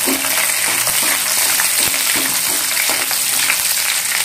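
Garlic cloves sizzling in hot oil with lentils and cumin seeds, stirred with a slotted metal spatula: a steady frying hiss full of small crackles.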